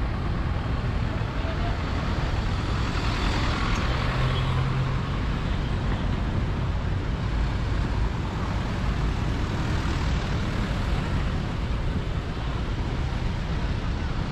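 City street traffic: a steady hum of car and truck engines and tyres, swelling a little about three to five seconds in as a vehicle passes.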